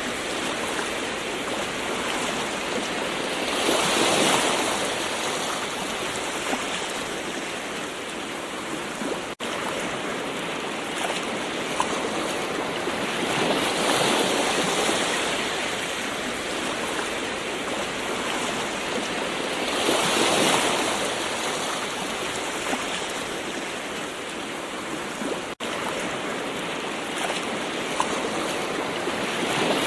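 Gentle ocean waves washing onto a shore: a steady hiss of surf that swells every several seconds as a wave breaks. The sound drops out for an instant twice.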